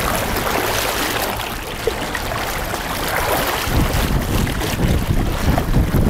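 Rushing river water and splashing as a person wades waist-deep against a strong current, with wind buffeting the microphone, heavier from a little past halfway.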